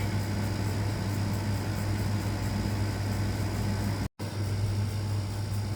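Steady low hum with background hiss, no alarm sounding; the audio drops out completely for an instant about four seconds in.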